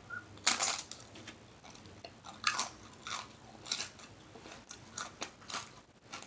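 A person chewing a mouthful of shrimp salad close to the microphone, with wet open-mouthed smacks and crunches coming at an uneven pace, roughly one or two a second.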